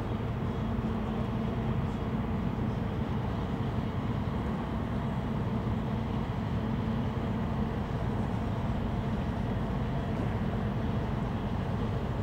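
Harbour tug's diesel engine running steadily under load while towing a barge: an even, low drone that holds the same pitch throughout.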